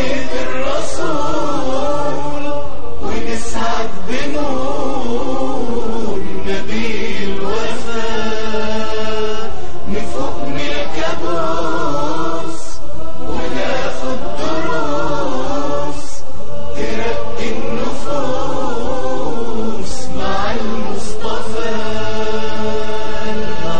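Nasheed vocals: voices chanting a sustained, wavering melody. No words are picked out, which points to a wordless choral section.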